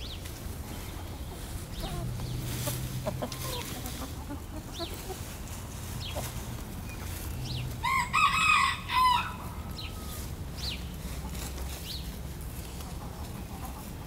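A flock of chickens foraging with scattered soft clucks. About eight seconds in, one chicken gives a single loud, drawn-out call lasting just over a second, broken into two parts.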